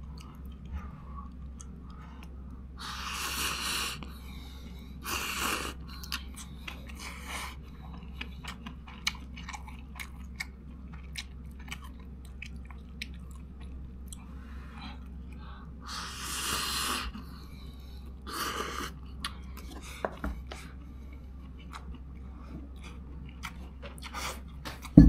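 A person eating close to the microphone: chewing with many small clicks, and a few louder noisy bursts of about a second each.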